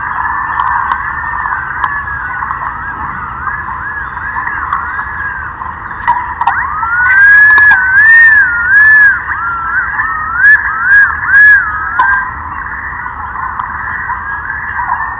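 Thick-billed green pigeons (punai lenguak) calling: several overlapping wavering whistles that glide up and down in pitch. About halfway through, one bird gives a louder, fuller bouncing whistled phrase, followed by three short loud notes.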